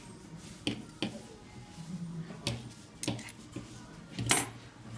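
Grooming scissors and comb working the hair on a cocker spaniel's foot: a handful of separate sharp clicks and snips, with one louder clack a little past four seconds in.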